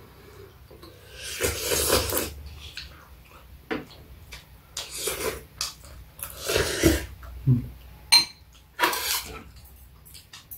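Metal spoons and chopsticks clinking and scraping against ceramic bowls during a meal, in a series of short bursts, with a sharp clink about eight seconds in.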